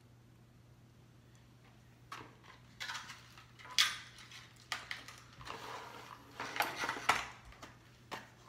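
Clear plastic clamshell lure packaging being handled and opened: irregular crinkling, clicks and snaps of stiff plastic, starting about two seconds in, loudest near four seconds and again around seven.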